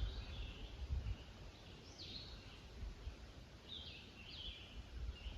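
A few faint, short bird calls, each falling in pitch, over a low uneven rumble.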